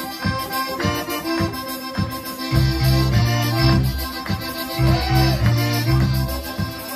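Polka band playing live, led by two piano accordions. Heavier, sustained bass notes come in about two and a half seconds in.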